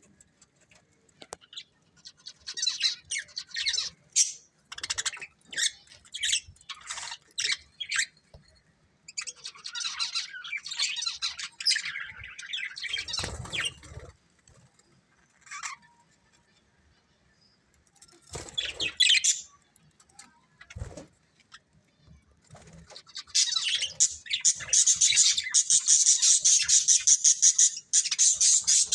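Budgerigars chirping in short high bursts, then a longer warble, and in the last few seconds a dense, rapid chatter. A few low thumps fall in between.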